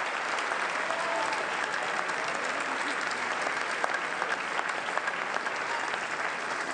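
Audience applauding steadily, a dense patter of many hands clapping, with a few faint voices mixed in.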